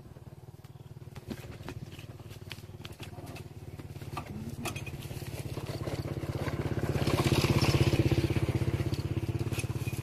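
Small petrol engine of a portable water pump running steadily, growing louder from about halfway and peaking near the end before easing slightly.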